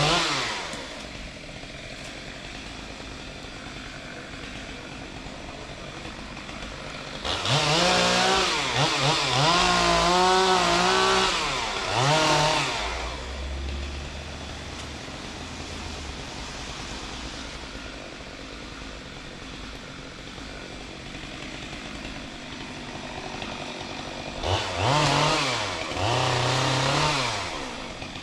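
Chainsaw revving in two long bursts, its pitch rising and falling as the throttle is worked, the first about seven seconds in and the second near the end, with a quieter steady running sound between them.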